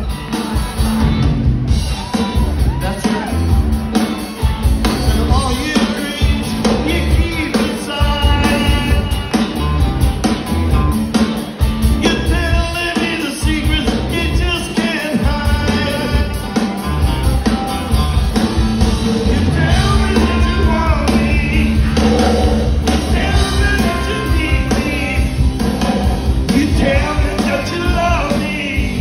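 A live rock band playing through a PA, heard from the audience: electric guitars, bass and drums with a sung lead vocal.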